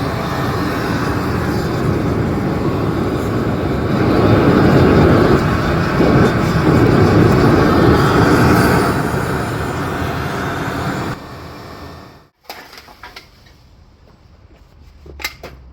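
Electric blower forcing air into a homemade aluminium-melting furnace, running loud and steady, then stopping about eleven seconds in; after that only faint clicks.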